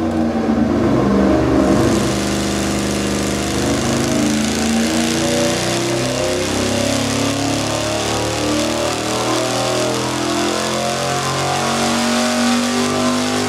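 383 cubic-inch small-block Chevy V8 with a cross-ram intake and two four-barrel carburetors making a dyno pull under load. Its pitch climbs steadily as the revs rise from about 3,000 to 5,500 rpm.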